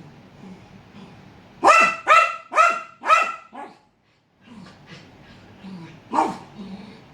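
Pet dog barking at an unfamiliar leopard gecko: a quick run of four loud barks about a second and a half in, a weaker fifth, then a single bark near the end.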